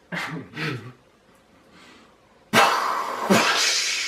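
A boy making mouth sound effects: a few short voiced grunts, then about two and a half seconds in a loud hissing, spluttering burst of breath noise that starts sharply and restarts once.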